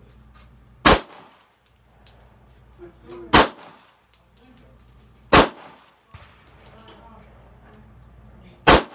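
Four single 9mm pistol shots from a Polymer 80 PF940c, a home-built Glock 19-pattern pistol, fired slowly and spaced about two to three seconds apart. Each shot is a sharp crack with a brief echo.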